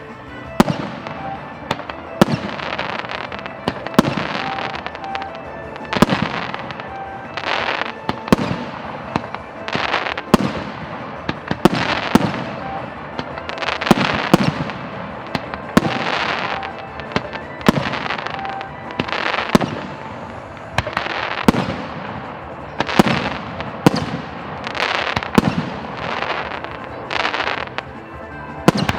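Aerial firework shells bursting in quick succession, about one sharp bang a second, each trailing off in a fading echo, with background music underneath.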